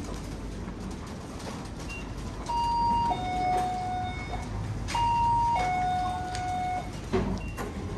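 Electronic door chime of a convenience store sounding twice, about two and a half seconds apart: each time a two-note ding-dong, a higher note then a lower one held about twice as long, marking someone passing through the entrance. A steady low store hum runs underneath.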